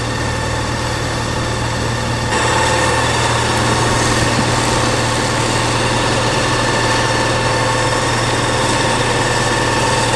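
A fire engine's engine runs steadily at raised throttle, driving its Godiva fire pump while the hose reels are open. About two seconds in, the sound gets louder and higher.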